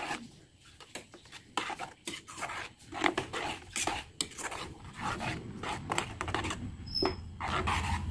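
Slotted metal spoon scraping and clinking against a non-stick kadhai while stirring thick green chilli sauce, in irregular strokes.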